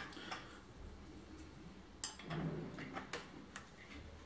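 Faint metallic clicks and taps of a wrench on a bicycle wheel's axle nut as it is tightened, with a sharper click about two seconds in.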